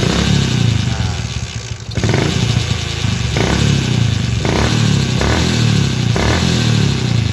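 Yamaha Jupiter MX motorcycle engine revved, dropping back briefly about two seconds in, with a rough clatter and several sharp knocks while it revs. The snagging noise is like a transmission gear catching, which the mechanic traces to a broken shift-drum retaining pin in the gearbox.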